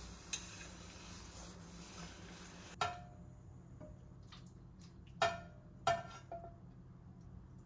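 Soft rubbing as a paper towel held in chopsticks wipes out a pot, then after a cut, kitchen tongs knock sharply against a frying pan and a stainless steel container four times, each knock ringing briefly, while fish pieces are served.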